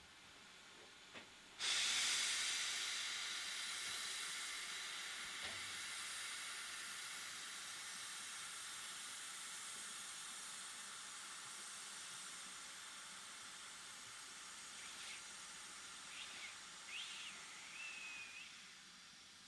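BR Standard tank steam locomotive letting off steam: a loud hiss starts suddenly about two seconds in, then slowly fades and dies away near the end. A few short high chirps sound near the end.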